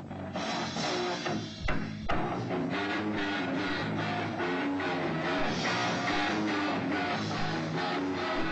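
Live rock band playing with electric guitar and drum kit, heard through an old recording that has lost its top end. There is a short break with two low thumps about two seconds in, then the playing carries on.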